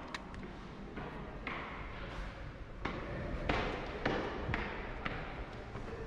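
Footsteps on stone stairs, a run of sharp knocks about two a second.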